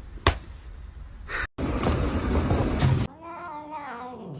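A cat meows once near the end, a drawn-out call that bends and falls in pitch. Before it comes a loud stretch of noise without a clear pitch.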